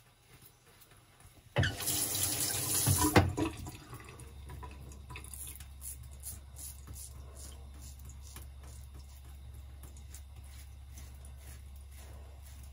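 Bathroom tap water running into a sink, loud for about two seconds starting a second and a half in, then settling to a steady lower rush. Faint scrapes of a double-edge safety razor on lathered stubble sound over it.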